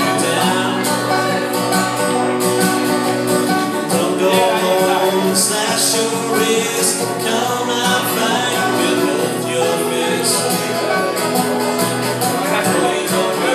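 Banjo and acoustic guitar played together live in a country-bluegrass style, with quick, continuous banjo picking over strummed guitar.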